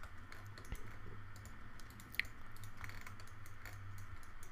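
Faint computer keyboard and mouse clicks, scattered and irregular, with one sharper click about two seconds in, over a steady low hum.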